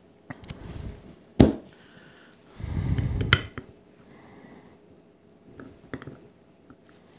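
Torque wrench set to 45 inch-pounds being handled and fitted with a socket onto a Holley carburetor power valve. There is a sharp metallic click about a second and a half in, a short noisy rush with clicks around three seconds, and a few light clicks near the end.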